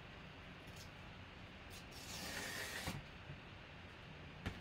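Stiff white cardboard photo mailer being handled and slid against the box: a few light paper clicks, then a scraping rub lasting about a second in the middle, and a sharp tap near the end.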